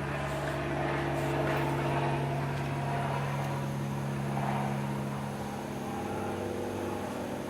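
Steady electric machine hum, holding several fixed tones, with a few of the higher tones shifting slightly partway through.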